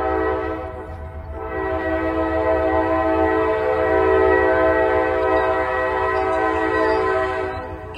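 Locomotive air horn sounding for a grade crossing: one blast ends about a second in, then a long steady blast of about six seconds follows, over a low rumble.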